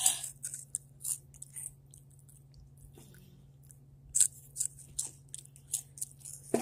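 Close-up crunching and chewing of red spicy hot chips: irregular sharp crunches in two clusters, near the start and again in the second half, with a quieter stretch between. A steady low hum runs underneath.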